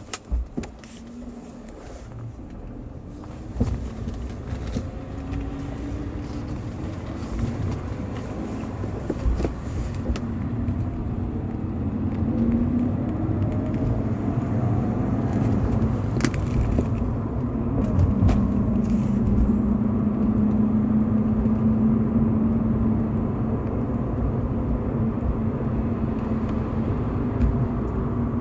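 A BMW E46 320i's stock 2.0-litre M52TU inline-six running as the car gets under way. The sound builds steadily, the revs climb around the middle, and then the engine holds a steady note.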